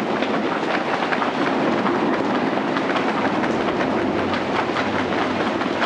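A large audience patting their legs in unison to imitate heavy rain in a group 'thunderstorm': a dense, steady clatter of many hands striking at once.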